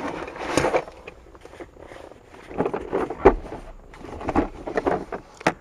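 Plastic socket-set case being handled and opened, with sockets clicking and rattling as one is picked out: a string of irregular clicks and knocks.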